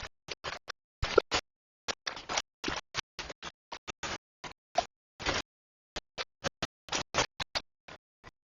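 Irregular run of short scraping and scratching noises, each one clipped off abruptly into silence.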